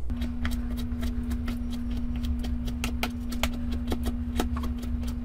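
Chef's knife chopping soft artichoke hearts on a plastic cutting board: quick, uneven knife taps against the board, several a second. A steady low hum runs underneath.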